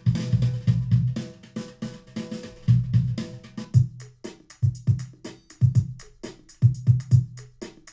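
Programmed hip-hop/R&B drum loops at about 96 BPM, previewed from Cubase's loop library, with a heavy kick drum and snare under hi-hats. About four seconds in it switches to a different, sparser loop.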